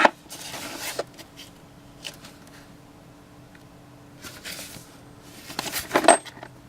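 Handling noise from the boxed impact driver set: a few light knocks and ticks, then a burst of packaging rustling and clatter near the end.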